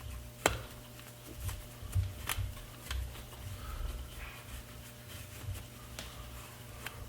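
Rag rubbing and wiping old grease out of a Shimano BB-52 Hollowtech bottom bracket, with scattered small clicks and knocks from handling the parts.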